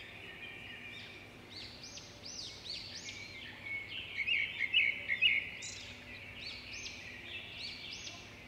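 Small songbirds chirping and twittering, with a burst of rapid, louder chirps around the middle.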